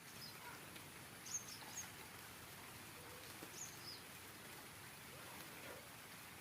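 Light rain falling as a faint steady hiss, with a few short high bird chirps about a second and a half in and again around three and a half seconds.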